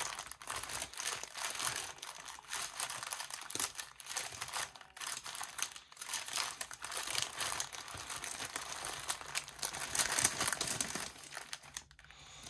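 Plastic crinkling and rustling as hands rummage through a clear plastic bag stuffed with small plastic packets of diamond-painting drills. The crackle is uneven and continuous, and dies down about a second before the end.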